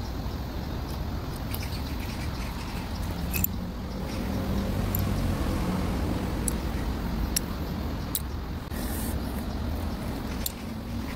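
Outdoor background noise: a steady low rumble, with a faint hum that swells between about three and six seconds in, and a few short high ticks scattered through it.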